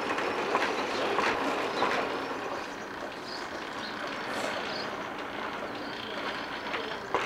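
Hand-turned spinning wheel clacking in a regular rhythm, about one and a half knocks a second, as wool is spun into yarn. The clacks then give way to a softer, steadier rattle.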